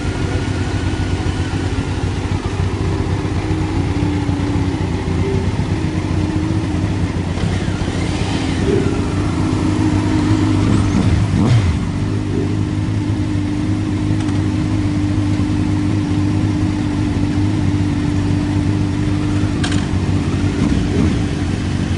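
Motorcycle engine, a Yamaha YZF-R1 breathing through a Yoshimura exhaust, running at a steady, even pitch with a brief drop in pitch about halfway through.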